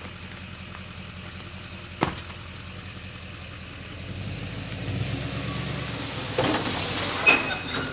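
A huge silver maple log scrapes as it slides off the raised bed of a dump trailer, ending in a heavy sharp thud about seven seconds in. A steady motor hum runs underneath and grows louder partway through.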